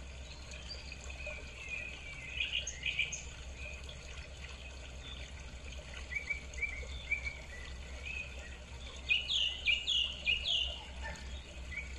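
Birds chirping: many short, repeated high calls, with a run of louder chirps that fall in pitch near the end, over a steady low hum.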